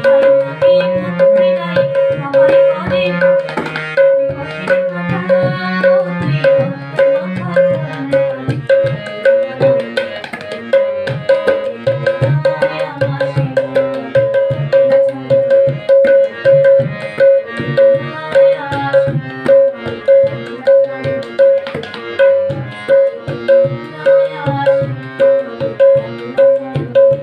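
Tabla being played in a continuous run of strokes: the right-hand dayan rings at one steady pitch, under deep bass strokes from the bayan that bend up and down in pitch.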